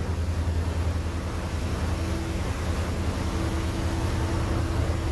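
A dive boat's onboard machinery running: a steady low drone, with a fainter higher hum that comes and goes over it.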